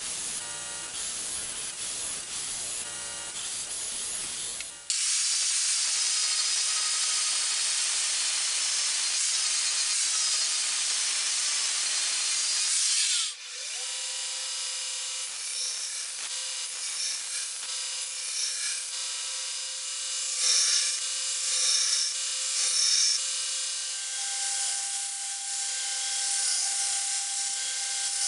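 Belt grinder grinding a steel kunai blade: the abrasive belt hisses and rasps on the steel. It changes abruptly twice, loudest and brightest in the middle stretch. Later the grinder's steady whine runs underneath, with a few short, louder passes of the blade against the belt.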